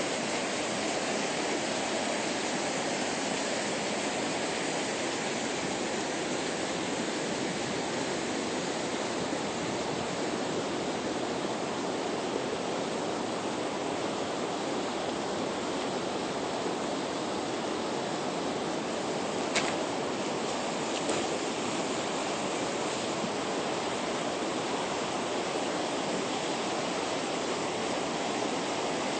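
Steady rushing of water, an even hiss without change. A brief sharp click about two-thirds of the way through, and a fainter one a second or so later.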